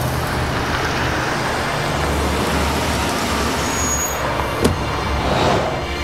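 Road traffic and car engine noise: a steady low rumble with hiss. A single sharp click comes about three-quarters of the way in, and a short swell of noise follows near the end.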